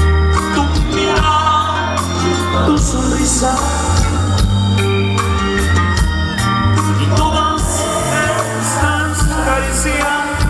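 Live norteño band music played loud over a PA, with a steady drum beat and heavy bass, and the concert crowd singing along to the song.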